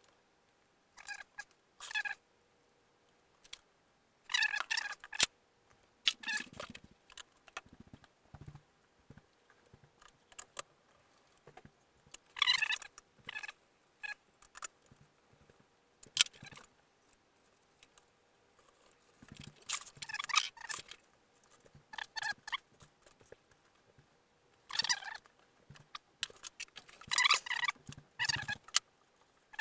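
Irregular bursts of handling noise from hands working on a foam model-plane fuselage and its parts: scraping, rustling and squeaky rubbing, with a few sharp knocks.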